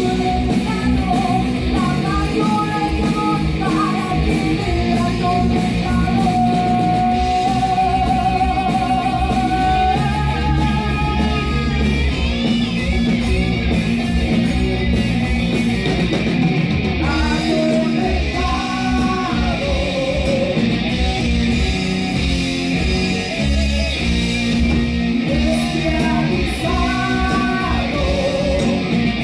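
Heavy metal band playing live: distorted electric guitars over bass and drums, with singing.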